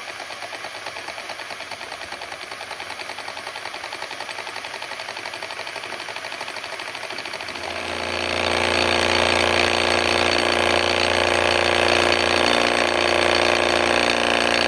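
A small model Stirling hot air engine running on a gas flame, with a fast, even mechanical clatter. About 8 seconds in it gets much louder: a hard rattle with a steady whine over it.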